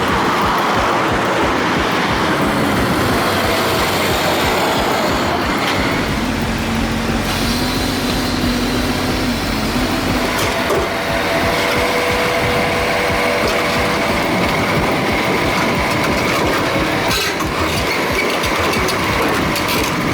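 Heavy vehicle engines running, with steady machinery noise and some short steady tones from the machines.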